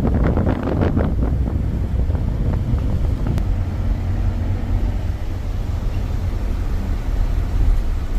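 Steady low rumble of a moving passenger vehicle heard from inside, with rattling and clattering in the first second or so before it settles.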